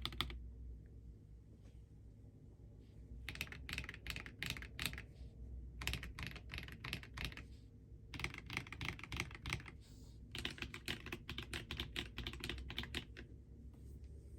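Typing on a mechanical keyboard with PBT keycaps, in several runs of fast key clacks separated by short pauses.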